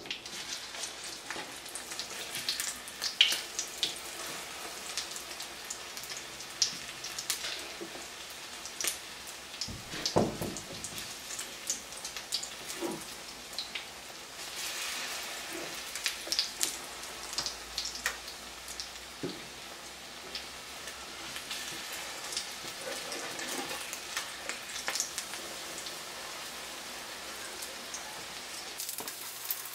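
Egg-battered potato cakes frying in hot oil in a nonstick pan: a steady sizzle with frequent pops and crackles as the oil splatters. The spatula knocks and scrapes against the pan as the cakes are flipped, loudest about ten seconds in.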